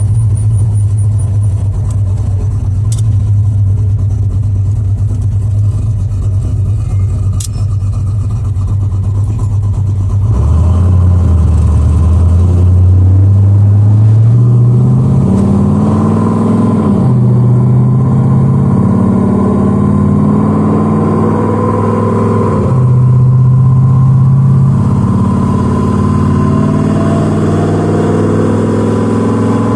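Car engine under way, humming steadily at first, then accelerating from about ten seconds in with its pitch climbing. The pitch drops sharply twice, like upshifts of the car's electronically controlled Ford 4R70W four-speed automatic.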